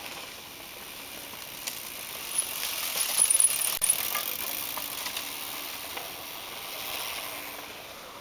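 A mountain bike passes close by, its tyres crunching over dry leaves and dirt and its freewheel ticking as the rider coasts through a turn. The sound is loudest about three to four seconds in, then fades as the bike moves away.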